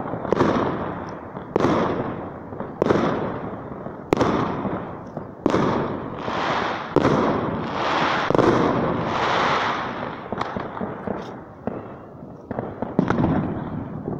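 Fireworks going off: a string of sharp bangs about once a second, each followed by a long echo. A denser crackling stretch comes in the middle, and smaller scattered pops follow near the end.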